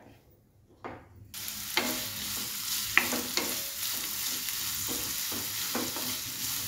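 Thinly sliced onions dropped into hot oil in a nonstick pan, setting off a steady sizzle about a second in, with intermittent knocks and scrapes of a wooden spatula stirring them.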